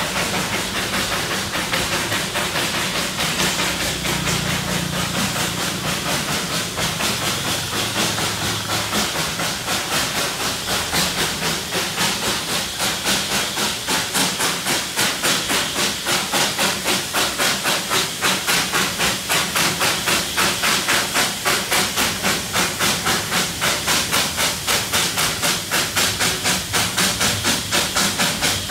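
Darjeeling Himalayan Railway steam locomotive working hard up the grade with a heavy three-coach train: a quick, even beat of exhaust chuffs over a constant steam hiss. The beat grows sharper after about ten seconds.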